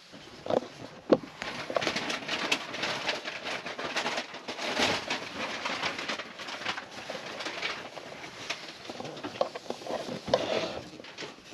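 German shepherd puppy giving short, soft whimpers, a few near the start and again near the end, over rustling of the fabric carrier and blankets around her.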